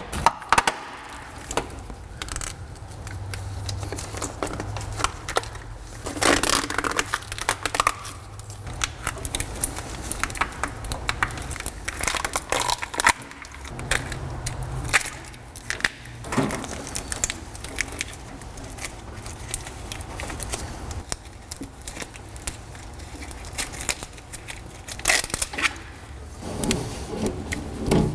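An old truck wiring harness being worked loose and pulled by hand: irregular clicks, cracks and crackling from the plastic loom and connectors, with a few louder rustling bursts.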